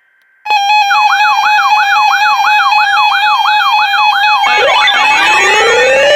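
Canadian emergency alert attention signal: starting about half a second in, a steady tone with a second tone warbling up and down about three times a second, like a siren. A little after four seconds in, more rising sweeps join, making the sound busier.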